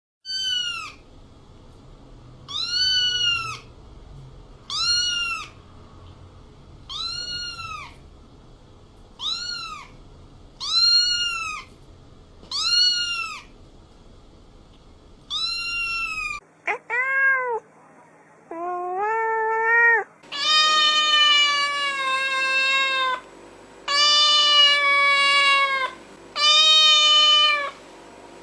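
Cats meowing, one recording after another. First a cat gives short, high meows that rise and fall, one about every two seconds, eight in all. Then the sound cuts to other cats: two short rising meows, then long drawn-out meows at a lower pitch.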